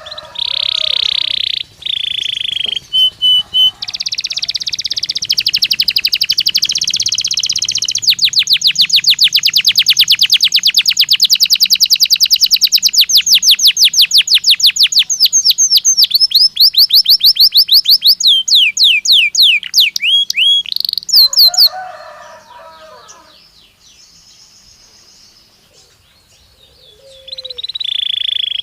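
Domestic canary singing a long, loud song: buzzy rolls, then a long fast trill of repeated notes, then a run of falling whistled sweeps. About two-thirds of the way in the song breaks off into a quieter pause, then starts again near the end. This is the kind of recorded song played to make a caged canary answer and sing.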